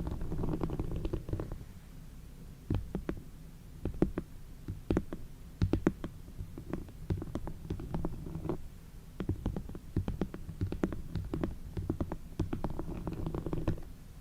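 ASMR close-microphone sounds: a low rumbling hiss at the start and again near the end, and in between a run of irregular light taps and clicks over a low rumble.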